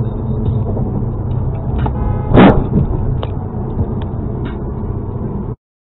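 Steady road and engine rumble heard from inside a car at highway speed, with one short, loud bang about two and a half seconds in. The sound cuts off abruptly just before the end.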